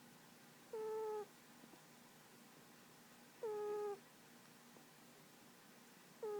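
Domestic cat snoring in its sleep: a short whistling squeak on each breath, three times, spaced about two and a half to three seconds apart.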